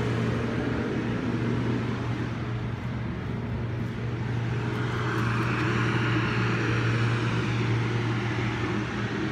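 Construction machinery running steadily next door with a low drone; a rushing noise swells about halfway through and fades near the end.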